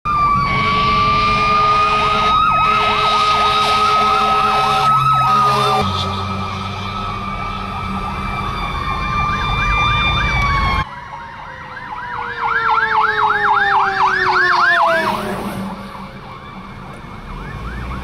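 Fire truck sirens from several responding trucks, a steady wail overlapped by a fast repeated yelp, over low engine and road rumble. The rumble stops abruptly about eleven seconds in; after that the yelp continues while a siren tone falls steadily in pitch.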